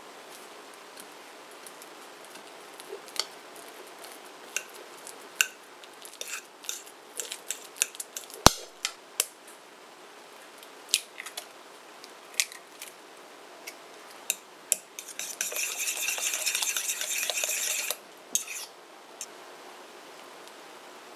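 A metal fork taps and scrapes in a mixing bowl as ripe banana is mashed and eggs are added, with one sharp knock about eight seconds in. Near the end comes a few seconds of fast, steady whisking of egg with the fork against the bowl.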